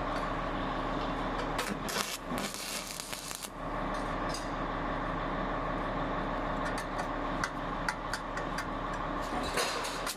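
Stick (arc) welding set running with a steady electrical hum. A spell of crackling hiss comes about two seconds in and scattered crackles follow, typical of an electrode arc.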